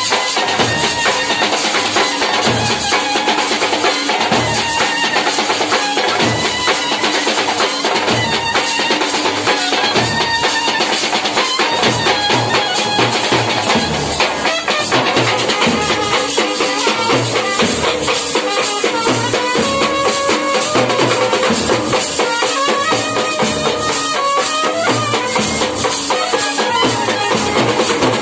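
Street band music: a clarinet plays the melody over several slung side drums beating a steady, busy rhythm.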